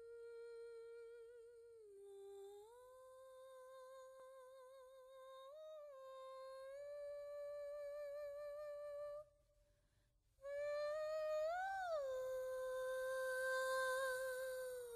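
A woman's voice humming a slow wordless melody with vibrato, the opening of the song before its French lyrics begin. It breaks off for about a second just past the middle, then comes back louder, swells up and falls back to a held note.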